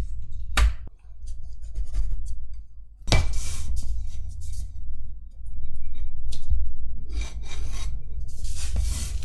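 Pencil scraping on thick cardboard in several strokes as it traces round the edge of a plate, with a sharp click under a second in.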